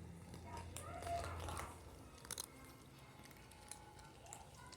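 Cats chewing dry kibble: irregular small crunches and clicks as the pieces are bitten and broken.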